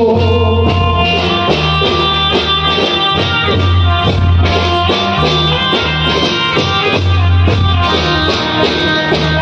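Loud instrumental music with no singing, played over a hired sound system: a sustained melody over a steady beat and heavy bass.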